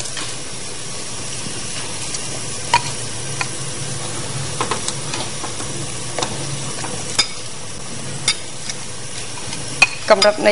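Food sizzling in a pot or pan as it cooks, with scattered clinks and scrapes of a utensil stirring it.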